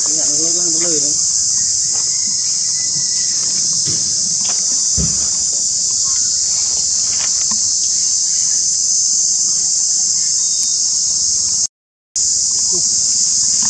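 A loud, steady, high-pitched insect chorus, with a short wavering call right at the start; the sound cuts out for a split second near the end.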